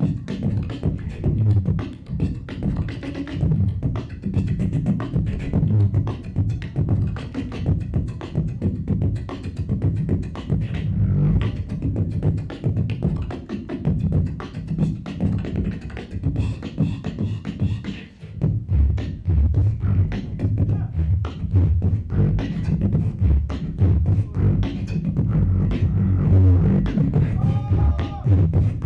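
Solo beatboxing into a handheld microphone over a PA: a fast run of mouth-made percussive clicks over deep bass tones. A brief break comes about 18 seconds in, after which the bass is heavier, and a short hummed tone comes near the end.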